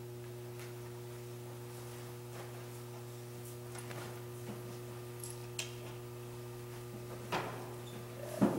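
Steady low hum, with a few faint knocks and clicks; the loudest knock comes near the end.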